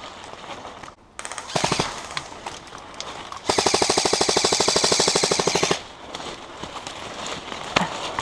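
Airsoft rifle firing on full auto: a short burst about a second and a half in, then a louder burst of about two seconds of rapid, evenly spaced shots.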